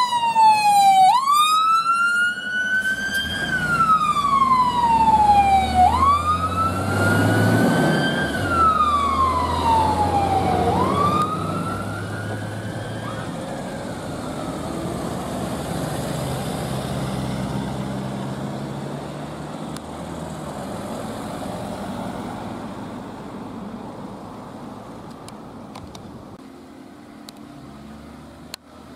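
Fire engine siren on wail, sweeping up and down about every five seconds, with the appliance's engine rumbling as it drives past. The siren fades out after about thirteen seconds, leaving a faint engine rumble that dies away.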